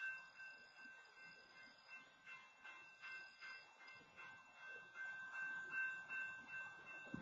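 Railroad grade-crossing warning bell ringing on and on at about two and a half strokes a second, the crossing signal still active with the gates down across the tracks. A single short knock comes near the end.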